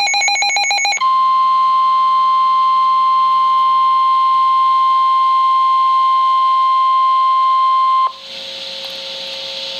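Emergency Alert System broadcast on NOAA Weather Radio: about a second of rapidly warbling digital data chirps from the end of the SAME header, then the 1050 Hz warning alert tone, a single loud steady beep held for about seven seconds. The tone signals a warning-level alert, here a flash flood warning. It cuts off suddenly into radio hiss.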